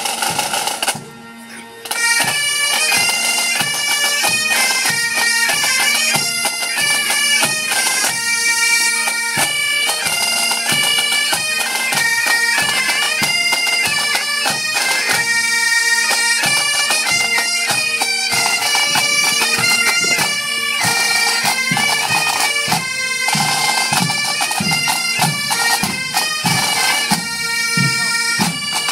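Breton bagad playing a tune: bagpipes over a steady drone, with drum beats underneath. There is a brief drop about a second in, then the full band plays on.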